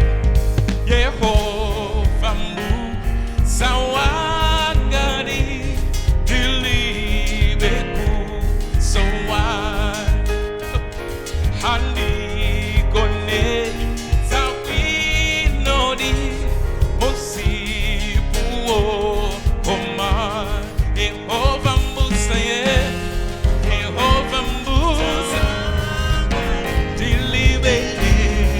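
Live gospel worship music: a band with a steady bass and beat under singing voices.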